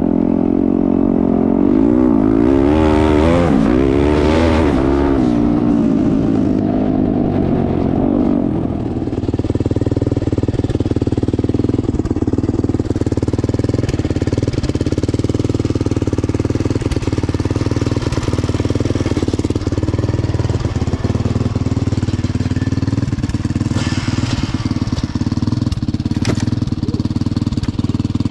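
Turbocharged Yamaha YZ450F single-cylinder four-stroke dirt bike engine revving up and down under riding, its pitch rising and falling. About nine seconds in it gives way to a steady engine idle.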